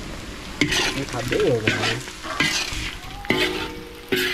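Metal spatula scraping and stirring meat in a large steel wok while it sizzles, about five scrapes a little under a second apart.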